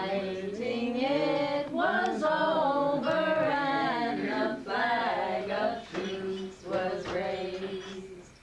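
Voices singing a song unaccompanied, holding long notes.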